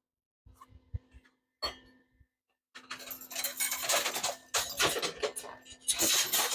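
Small metal parts clinking and rattling as they are rummaged through by hand: a few light clinks at first, then from about three seconds in a continuous jangling clatter.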